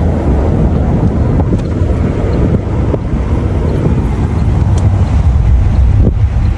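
Wind buffeting the microphone: a loud, steady, low rumbling roar.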